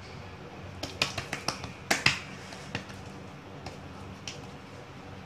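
Wet hands patting soft, hot gram-flour dough flat on a steel plate: a quick run of sharp, wet slapping pats about a second in, then a few lighter single pats.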